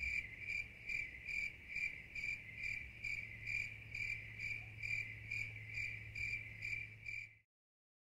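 Cricket chirping in a steady, even rhythm, about two chirps a second, over a faint low hum; it cuts off suddenly near the end.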